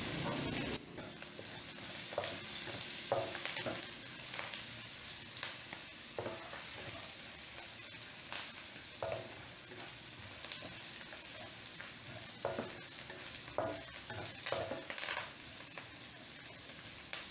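Sliced onions, chillies and curry leaves sizzling in oil in a wok, with a spatula stirring and scraping against the pan in short, irregular strokes as turmeric powder is mixed in.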